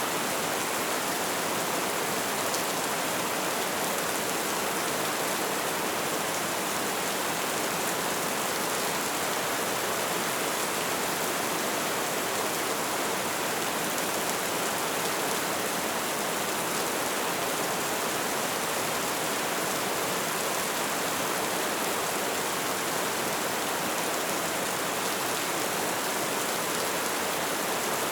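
Light rain falling, a steady even hiss with no distinct drops.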